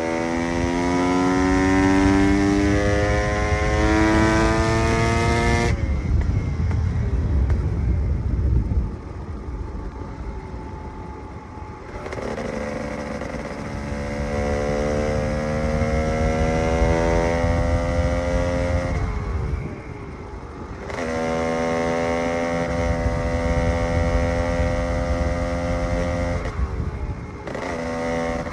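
KTM EXC 300 two-stroke enduro motorcycle engine pulling hard three times, its pitch climbing through each pull. The throttle shuts off about six seconds in, then again around twenty seconds in, and the engine drops to a rougher, quieter running in between.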